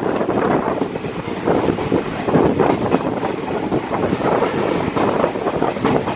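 Passenger coaches of an express train rushing past on the adjacent track: a steady noise of wheels running on rail, with wind buffeting the microphone.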